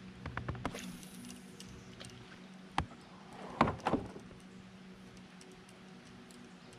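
Scattered knocks and clicks of fishing gear handled in a plastic kayak: a few light clicks early, a single sharp knock just before three seconds in, and the loudest cluster of knocks about three and a half to four seconds in.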